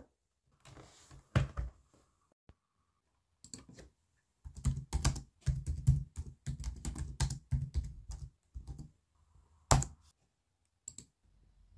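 Typing on a laptop keyboard: a quick run of keystrokes lasting several seconds, after a few scattered knocks, then a single harder key press near the end as the enter key is hit.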